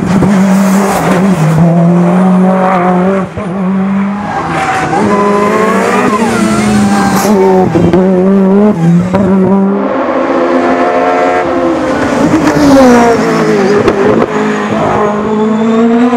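Racing car engines at high revs, their note climbing and dropping sharply several times as the cars accelerate and change gear. About ten seconds in, the sound switches abruptly to a different car.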